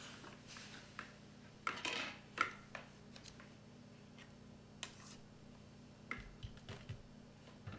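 Faint scattered clicks and knocks, a few close together about two seconds in and again near the end, over a steady low hum.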